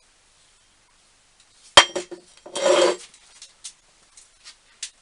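Metal pieces handled on a workbench: a sharp metallic clank that rings briefly, then a short ringing scrape of metal on metal, then a few light clicks.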